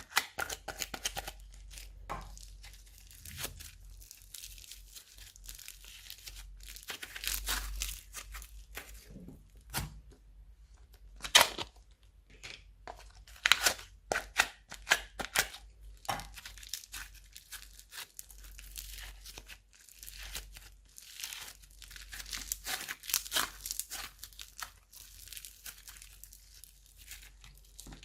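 Hands kneading, stretching and folding slime, giving irregular sticky clicks, pops and crackles, with a few louder pops now and then.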